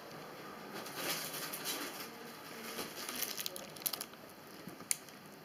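Irregular rustling and crinkling of a plastic-wrapped package being handled, with scattered light clicks and a sharper tick near the end.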